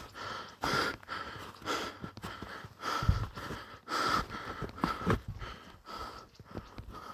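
A person breathing hard, in noisy breaths roughly once a second.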